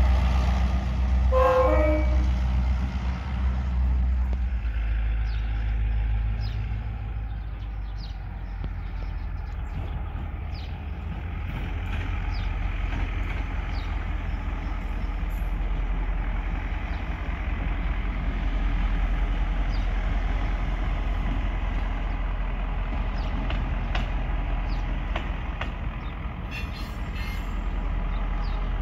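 EMD GL18B diesel locomotive running with a steady low engine drone as it pulls its train away, with one short horn toot about a second and a half in.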